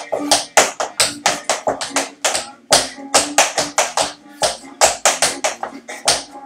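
Tap shoes striking a tap board in quick, uneven freestyle rhythms, several sharp taps a second.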